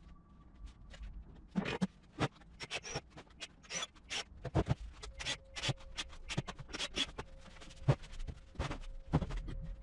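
Wooden box panels and a bar clamp being handled: irregular knocks, clicks and scrapes of wood and clamp, starting about a second and a half in.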